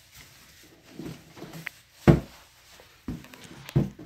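Rummaging through a cardboard box of shoes: a few dull thumps and knocks against the cardboard as a pair of boots is pulled out, the loudest about two seconds in, with light rustling between.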